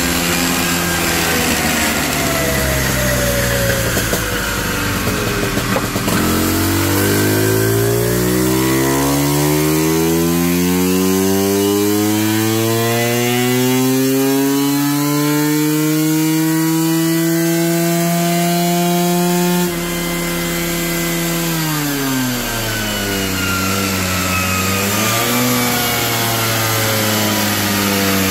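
Tuned two-stroke scooter engine with a Unisex exhaust making a full-throttle dyno power run: the engine note climbs steadily for about fourteen seconds, then the throttle shuts and the revs fall away, with a brief blip near the end.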